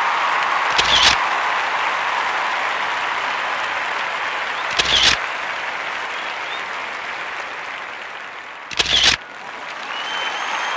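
A crowd applauding steadily. Three short, sharp clicks come about four seconds apart.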